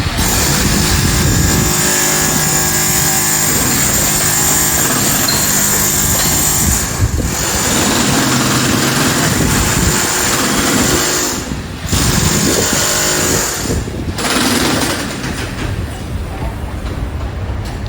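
Construction-site noise of a power breaker chiselling into concrete, with machinery running. It is loud and continuous, with brief breaks about 7, 12 and 14 seconds in.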